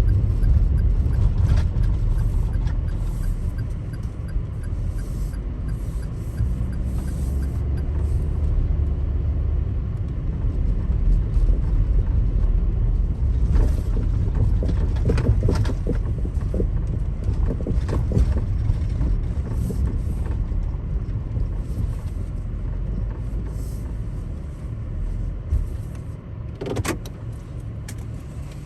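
Daihatsu Taft kei SUV driving on a snowy road: a steady low rumble of engine and tyres, with scattered short clicks and knocks.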